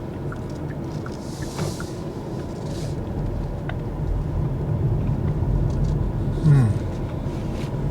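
Tyre and road noise inside the cabin of a Kia EV6 electric car as it drives, a steady low rumble with no engine sound, growing slightly louder. A brief hiss comes about a second and a half in.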